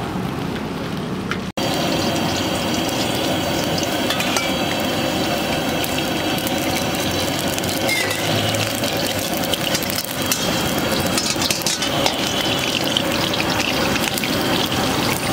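Brief road traffic, then oil heating in a steel wok over a gas burner: a steady frying hiss with light sizzling and occasional short clicks.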